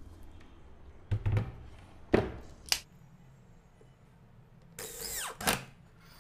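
Corded electric drill driving a screw through a drawer slide channel into a plywood drawer side: one short run near the end that winds down in pitch as the trigger is let go. Before it, a few knocks as the drawer and channel are handled.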